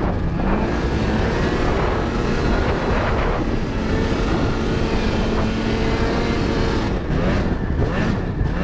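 Snowmobile engine running hard under the rider at speed, its pitch rising and falling with the throttle. It holds a steady note for a few seconds in the middle, then revs again near the end.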